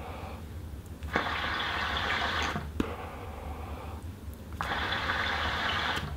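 A CNC-machined hookah being smoked: two stretches of bubbling, hissing air through the water-filled base, about a second in and again from about four and a half seconds, with breath and smoke exhaled in between.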